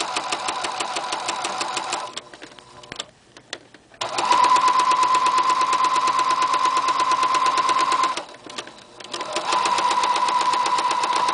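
Electronic household sewing machine stitching a binding onto knit fabric in three runs with two short stops. Each run is a steady motor whine under a rapid, even needle clatter. The middle run, starting about four seconds in, is the loudest.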